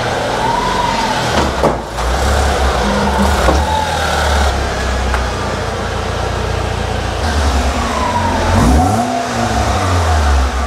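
Alfa Romeo 145's Twin Spark four-cylinder engine running through its newly fitted, partly custom stainless exhaust, idling with a blip of revs near the end. The manifold has been resealed and the system renewed, so there should be no exhaust blow.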